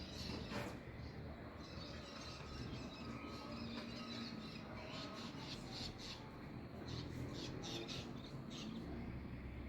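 Small songbirds chirping and singing, with a quick run of short high chirps in the second half, over a steady low background noise.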